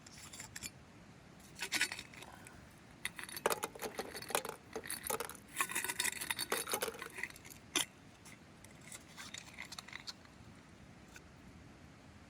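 Clinks, taps and rattles of dishes and cooking utensils being handled. The short knocks come in clusters, densest in the middle and trailing off near the end.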